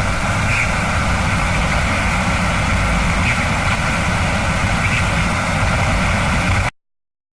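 Abstract sound effect: a steady, dense rumbling drone with faint high blips every second or two. It cuts off abruptly near the end, leaving silence.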